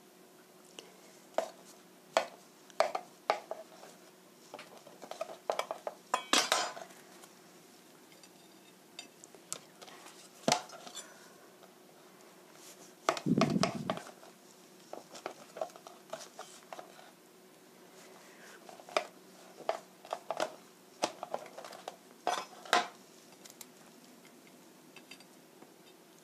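Kitchen knife cutting through a baked apple pancake and knocking and scraping on a plastic cutting board, with scattered clicks of knife and plate. One louder, longer scrape comes about halfway through.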